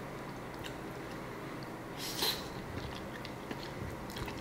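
A person eating soft steamed rice rolls: quiet mouth and chewing sounds as she takes a bite, with one louder short sound about two seconds in.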